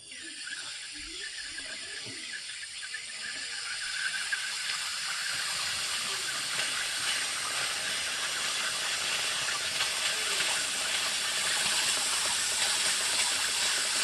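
Compressed air hissing steadily into a gallon jug of vinegar, pressurizing it to force the vinegar through a hose into a water heater's drain valve; the hiss starts suddenly and grows gradually louder.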